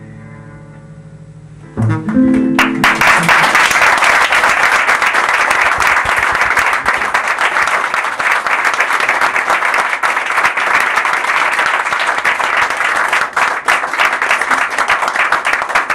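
A guitar-and-cello piece ends: its last chord rings and fades, with a few final notes just before two seconds in. A small audience then breaks into steady applause.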